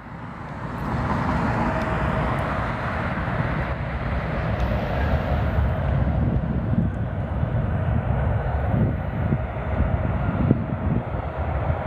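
Jet airliner's engines at takeoff power: a broad, steady rumble and hiss that builds over the first second or two and then holds, with a faint steady whine.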